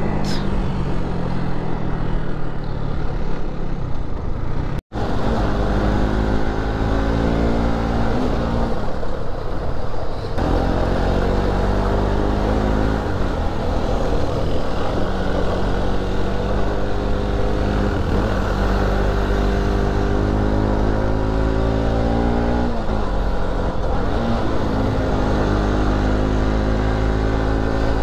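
Motorcycle engine running while riding, its pitch rising and falling with the throttle, over heavy wind rumble on the microphone. The sound drops out for an instant about five seconds in.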